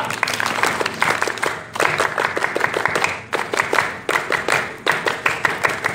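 A group applauding with many hands clapping, right after the event is declared open.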